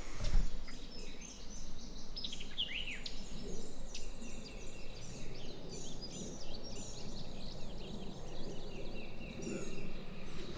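Songbirds calling and singing: many short chirps and trills, with a run of falling notes about three seconds in, over a steady low background rumble. A brief knock sounds right at the start.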